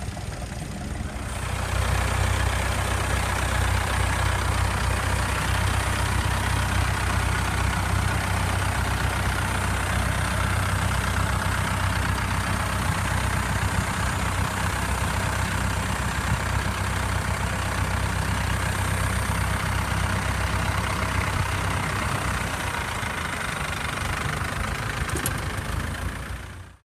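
International 744 tractor engine running steadily while it pulls a plough. It gets louder about two seconds in and cuts off suddenly at the very end.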